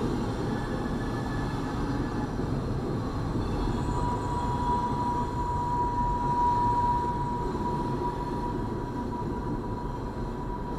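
Double-stack intermodal freight train rolling past, a steady rumble of wheels on rail. A thin steady whine joins it about four seconds in.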